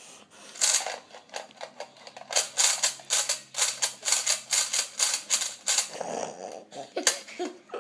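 A small plastic toaster fidget toy being clicked, in a rapid run of sharp clicks at about five or six a second, with a faint low hum under the middle part.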